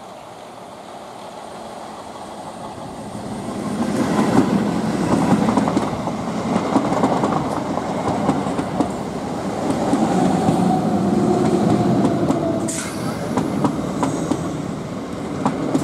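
Old conventional EMU local train approaching and running past close by. It grows louder over the first four seconds, then gives a steady rumble of passing coaches with wheels clicking over rail joints. A faint whine is heard partway through.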